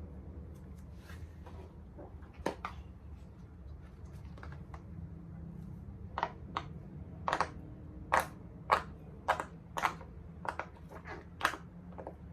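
A large silicone pop-it fidget toy's bubbles being pressed and popping. There are a few scattered pops early, then a run of pops at about two a second in the second half.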